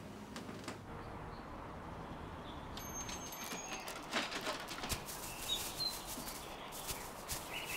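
Outdoor ambience with a few short bird chirps, and a run of quick rustles and clicks from about four seconds in.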